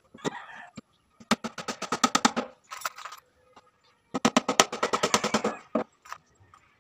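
Hammer driving nails into the top panel of a wooden subwoofer box, in two quick runs of sharp blows about a second and a half each, the first about a second in and the second about four seconds in.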